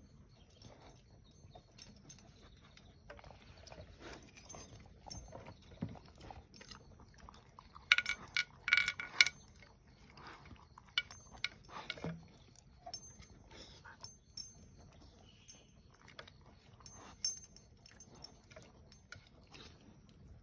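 A dog licking and eating at a plastic bowl: a string of small wet clicks and laps, with the metal tags on its collar clinking. The busiest, loudest flurry comes about eight to nine seconds in.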